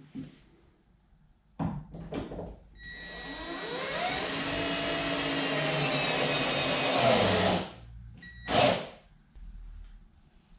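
Power drill boring a hole into a wooden boat rail. It runs for about five seconds, rising in pitch as it spins up and then holding steady, and gives a short second burst a moment after it stops. A few light knocks come just before it starts.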